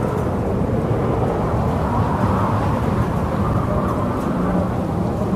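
Steady low rumbling noise of strong storm wind and rough, choppy water.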